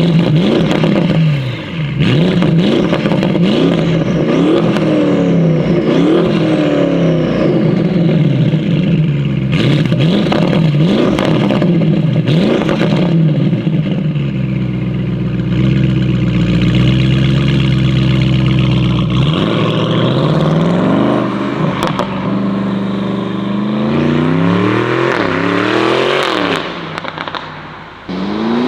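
Tuned Audi RS6 C8's twin-turbo V8 with an aftermarket exhaust, driven hard: the revs climb and drop back again and again, hold steady for several seconds in the middle, then climb again before easing off near the end.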